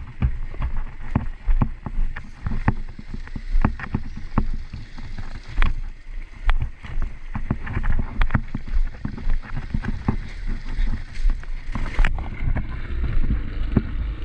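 Trail motorcycle riding over rough ground: a low rumble with wind on the microphone, broken by frequent sharp knocks and rattles, several a second.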